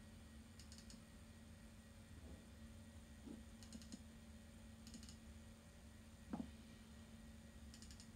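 Faint mouse-button double-clicks on a vintage compact Apple Macintosh, four small clusters of quick ticks as folders are opened in the Finder, over the computer's steady low hum. A soft thump about six seconds in.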